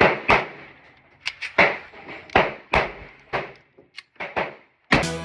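Handgun shots echoing in an indoor range: about a dozen sharp cracks at uneven intervals and of varying loudness, some from neighbouring lanes. Upbeat background music comes in near the end.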